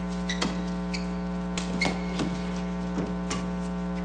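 Badminton rally: sharp racket strikes on the shuttlecock every second or so, with a few short high squeaks, over a steady electrical hum.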